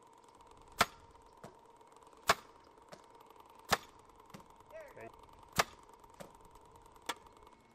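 Jugs football throwing machine running, its two spinning wheels giving a steady whine, with sharp clicks about every second and a half.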